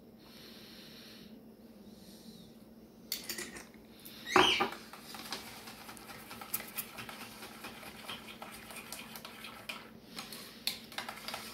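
A spoon stirring thick sauce in a small bowl, tapping and scraping against the bowl in many light ticks. About four seconds in, one short, louder squeak rising in pitch.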